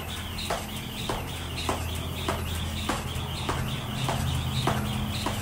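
Jump rope slapping a concrete patio in a steady rhythm, a little under two slaps a second, with a swishing whir of the rope between slaps. A steady low hum runs underneath.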